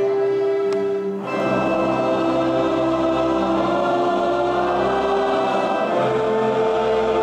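Large men's choir singing a mass Credo with a string orchestra. A held chord gives way about a second in to a fuller passage with deep bass added, with a change of chord near the end.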